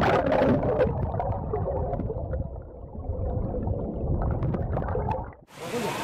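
Muffled underwater rushing and gurgling of a fast-flowing river, heard with the microphone submerged, with a scatter of bubble clicks in the first second. It cuts off suddenly about five and a half seconds in, giving way to an open-air hiss.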